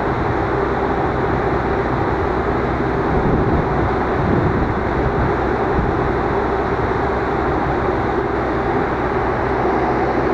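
Diesel locomotive engine running steadily during shunting, a constant rumble with no sudden events.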